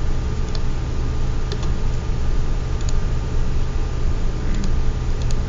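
A few sharp computer-mouse clicks, scattered and irregular, over a steady low background hum.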